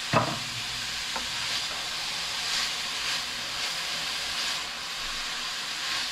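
Chopped vegetables sizzling in hot oil in a large pan, with a sharp knock just after the start as the chopped stems are tipped in, then a steady frying hiss.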